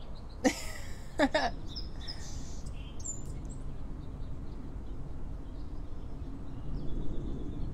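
Songbirds chirping, a few short high chirps and a quick rising and falling call about two to three seconds in, over steady low outdoor background noise.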